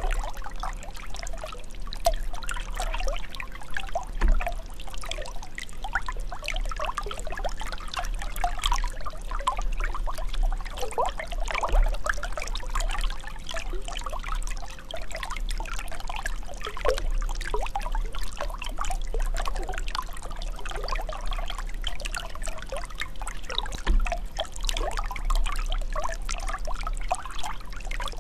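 Running water trickling and gurgling without a break, full of small bubbly plops and splashes.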